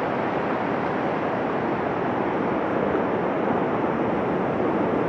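Steady rushing of a mountain river in the gorge below.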